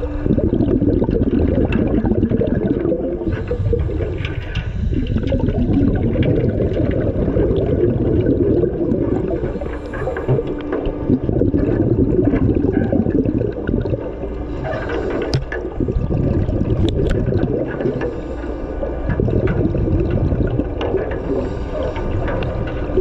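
Scuba regulator exhaust bubbles heard underwater: a loud bubbling rush that swells and eases with each breath, a few seconds apart. A few sharp clicks come a little past halfway.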